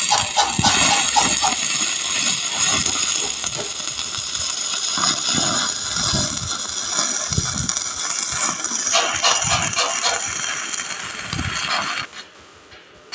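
Stick-welding arc burning on a pipe joint: a steady, loud crackling and hissing from the electrode tip, which cuts off suddenly about twelve seconds in as the arc is broken.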